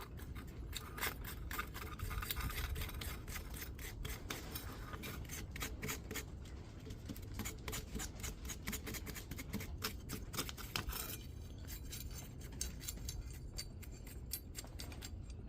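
A cheap, stiff brush scrubbing melted wax finish over a small hand-forged iron brooch, a faint rapid scratching. It thins out about eleven seconds in.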